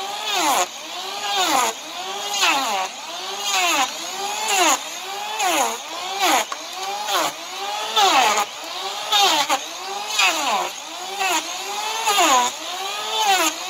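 Cordless electric hand planer shaving down an overgrown draft horse hoof: its motor whine rises and sags in pitch with each pass, about once a second.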